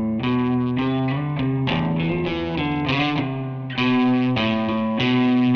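Background music: a distorted electric guitar playing a run of sustained notes that change every half second or so.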